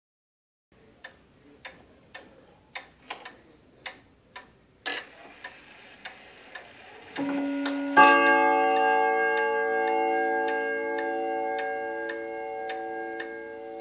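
German Black Forest 8-day spring-driven wall clock ticking, with a sharper click about five seconds in. Its bim-bam chime then strikes two ringing notes about a second apart, the second brighter and louder. The notes ring on slowly fading while the ticking continues.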